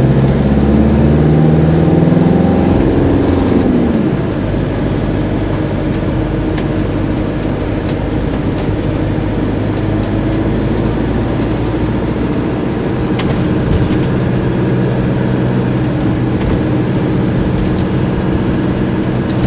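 Fiat Ducato diesel engine of a motorhome heard from inside the cab, accelerating with its pitch rising over the first few seconds, then settling into a steady drone with road noise while cruising.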